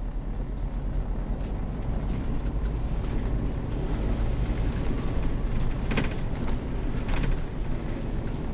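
Heavy motorhome on the move: a steady low engine and road rumble, with two brief clicks about six and seven seconds in.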